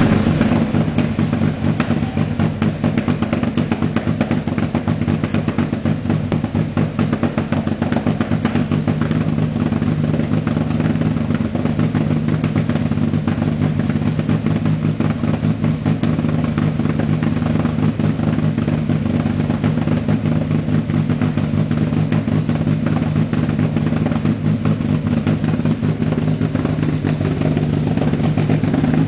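Group A rally Renault Clio engine idling roughly: a steady, lumpy idle with an uneven pulse that holds the same pitch throughout.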